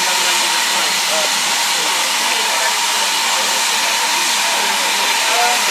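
Steam locomotive letting off steam: a loud, steady hiss.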